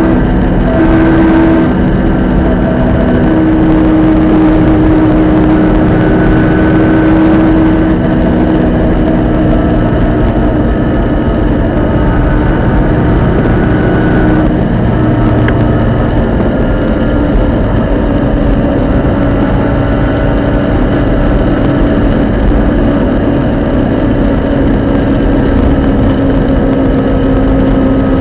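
Subaru Impreza GC8 running under way, its engine and drivetrain giving a continuous noise with several steady tones over it that shift in pitch now and then: the abnormal noise the owner puts down to the center differential.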